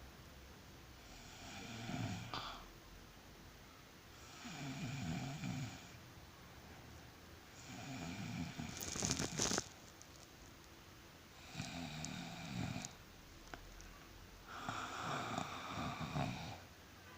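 A person snoring in slow, regular breaths, five snores about three seconds apart. A sharp, louder burst comes at the end of the third snore, near the middle.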